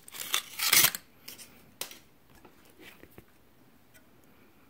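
Aluminium foil crinkling and rustling as it is pulled out from among the radio chassis wiring, loudest just before a second in, followed by a few light clicks and taps of handling.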